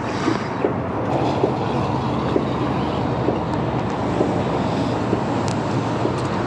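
Steady low rumble and hiss, with a few light clicks scattered through.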